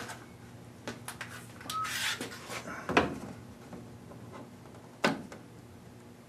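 Handling noise of a wooden straightedge being set up against a Piper J-3 Cub's fabric-covered tail fin: a rustling scrape, then a sharp knock about three seconds in and a second, softer knock about two seconds later.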